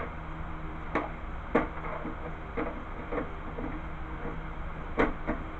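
Scattered light clicks and knocks of exercise-bike parts and hardware being handled during assembly, about seven over a few seconds, the sharpest about a second and a half in and again near the end, over a steady low hum.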